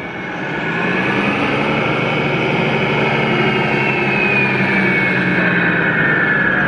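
Steady, loud engine noise with a thin high whine that falls slowly in pitch.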